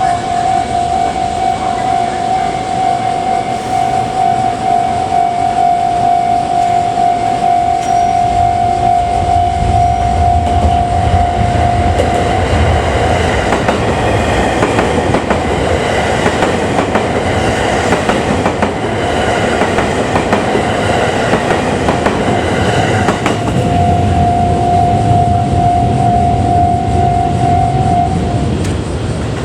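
Japanese level-crossing alarm ringing in a steady pulse while a 287 series limited express electric train runs over the crossing. For about ten seconds mid-way the train's rumble and the clatter of its wheels over the rail joints take over and the bell drops out; the bell then rings again and stops near the end.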